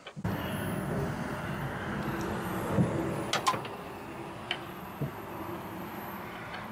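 A few sharp metallic clinks of a wrench working the wiring nuts on a diesel engine's starter motor, loudest about three seconds in, over a steady background rumble.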